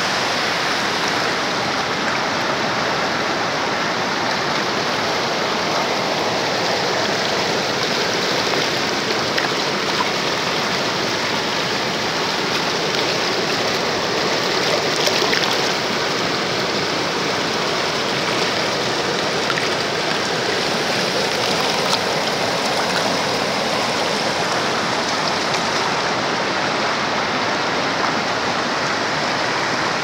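River water rushing over rock ledges and low cascades in rapids: a steady, unbroken rush of white water.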